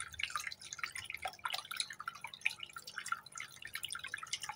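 Hot oil sizzling in a tiny frying pan of breadcrumb-coated paneer balls, heard as faint, irregular crackles and ticks.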